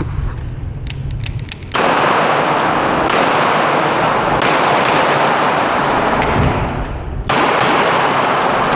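Handgun shots at a shooting range: a quick run of sharp cracks, then sudden loud onsets, each followed by seconds of dense, rough noise.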